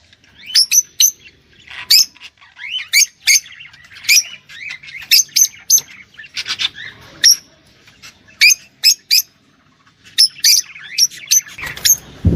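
Bird chirping in short, sharp, repeated chirps that sweep quickly in pitch. They come in quick clusters with uneven gaps and stop briefly about ten seconds in.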